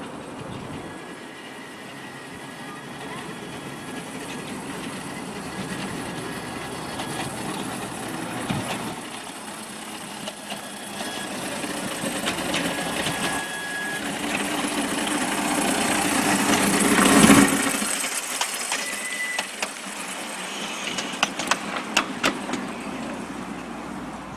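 A passing vehicle, its noise building slowly to a peak about seventeen seconds in and then fading, followed by a run of sharp clicks.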